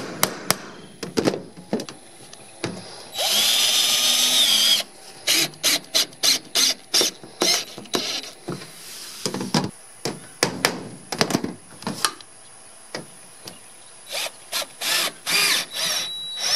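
Hammer tapping a washered sheet-metal screw to start it into a galvanized 5V-crimp steel roof panel, then a cordless drill driving screws into the panel. The drill runs once for about a second and a half about three seconds in, then in many short bursts, to drive the screws slowly without over-tightening and warping the metal.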